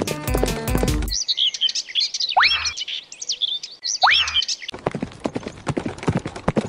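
Birds chirping and twittering, a soundtrack birdsong effect, cutting in after a short tail of music, with two rising whistles about two seconds apart. Near the end the birdsong stops and a run of quick clicking taps follows.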